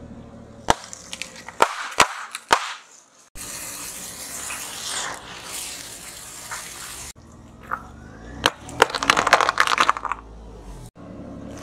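Balloons bursting under a car tyre in four sharp pops, then a green firework fountain hissing for about four seconds as the tyre runs over it, then a quick run of cracks as brittle plastic breaks under the tyre.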